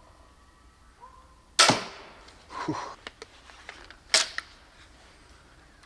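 Compound crossbow firing a bolt with a sharp, loud snap, followed about a second later by a weaker impact sound. A second loud snap comes near the end, with a few small clicks between.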